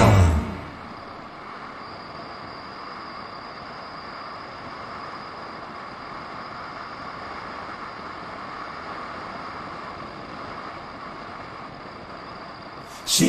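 Steady driving noise of a vehicle moving along a road, heard from inside: an even rush of engine and tyre noise with a faint, steady high whine.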